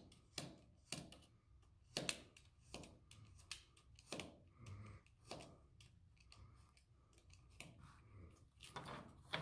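Snap-off utility knife blade cutting through the corner of a small paper notebook and its cover along a steel ruler: a series of faint, short, sharp scraping strokes, roughly one or two a second.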